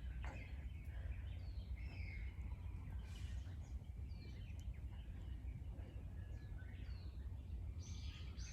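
Forest birds calling with short, scattered chirps, over a steady low rumble. Near the end a quicker run of louder notes starts.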